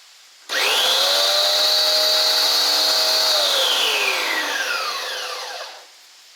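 Bosch Aquatak electric pressure washer motor and pump switched on, running at a steady high whine for about three seconds, then switched off and spinning down with a falling whine.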